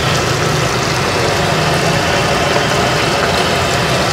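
A steady, engine-like low hum under an even hiss, with no distinct knocks or breaks.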